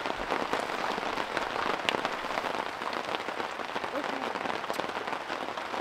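Rain falling hard, a dense steady patter of drops.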